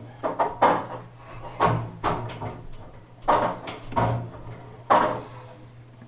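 A refrigerator cabinet being rolled out from the wall, giving a series of irregular knocks and thuds over a steady low hum.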